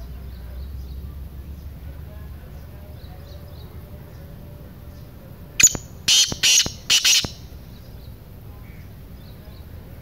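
A black francolin calling: a loud phrase of about four harsh, grating notes about six seconds in. Faint chirps of other birds are heard throughout.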